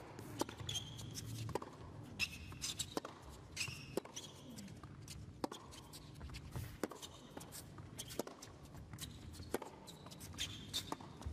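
Tennis rally on an indoor hard court: sharp pops of racket strings on the ball and the ball bouncing, roughly one every second or so. Between them, players' shoes give short high squeaks as they change direction on the court.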